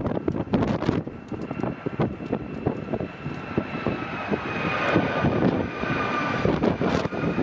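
Jet engines of a United Boeing 757 whining, their pitch drifting slowly down and growing louder about two-thirds of the way through. Strong wind gusts buffet the microphone throughout.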